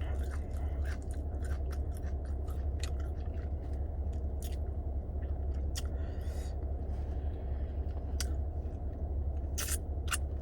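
Close-up chewing of a taco, with short crunchy clicks at irregular intervals over a steady low hum.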